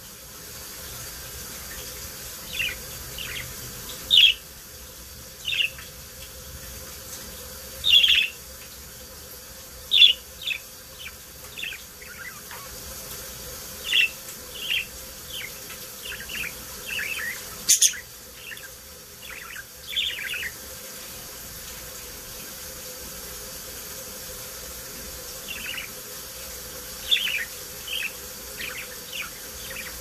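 Budgerigars chirping in short, scattered calls, sometimes several in quick succession, over a faint steady hum. One sharp click a little past halfway through.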